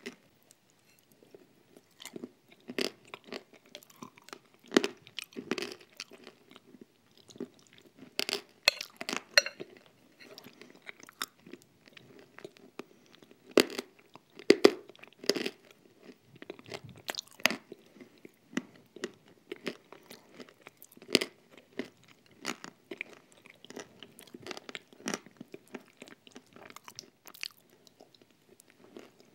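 Close-miked mouth sounds of someone eating a thick cream mixed with crunchy nut crumb: wet chewing and lip smacks broken by many irregular sharp crunches as the nut pieces are bitten.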